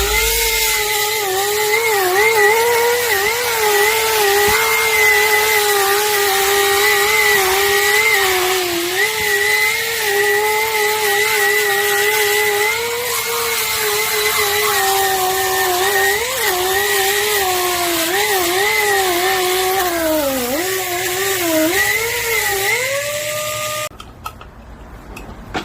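Freshly overhauled 7-inch lightweight pneumatic grinder running with a high whine and air hiss, its pitch dipping again and again as the abrasive wheel is pressed into the work, with the deepest dips near the end. It shuts off suddenly about two seconds before the end, leaving a few light clicks.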